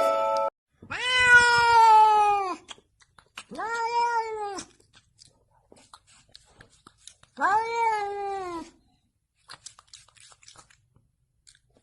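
A cat meowing three times in long, drawn-out calls, each sliding down in pitch at the end.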